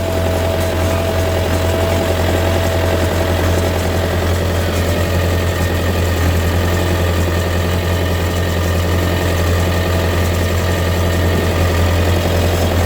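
Old 1960s Case backhoe's engine running steadily, a deep constant drone, with a thin high whine over the first few seconds that fades out.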